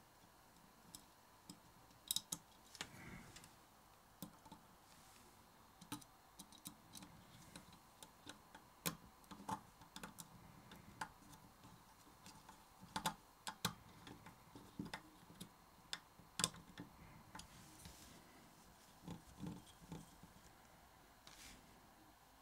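Small screwdriver working screws into the metal body of a condenser microphone: faint, irregular clicks and ticks of metal on metal, a few of them sharper.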